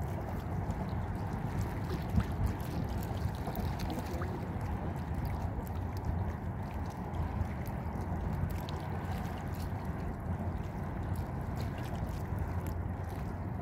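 Sea water lapping and gurgling, with wind noise on the microphone underneath and scattered faint ticks and splashes; a slightly louder knock about two seconds in.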